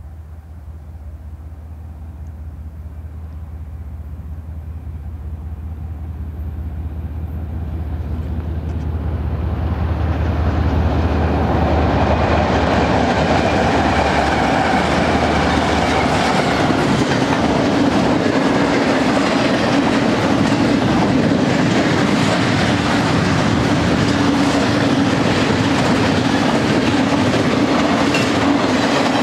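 BNSF double-stack intermodal freight train headed by GE diesel locomotives, growing steadily louder as it approaches. The locomotives pass about eleven to fourteen seconds in, and after them comes the steady rumble of the stack cars rolling by, their wheels clicking over the rail joints.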